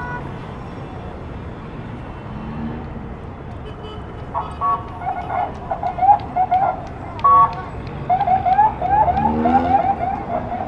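Street traffic noise, then about four seconds in a car alarm goes off: short flat blasts and runs of quick rising chirps, about four a second, louder than the traffic.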